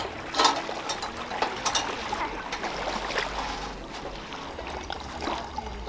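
Small waves lapping at the lakeshore, with scattered clicks and knocks of a metal camp stove and cookpot being handled.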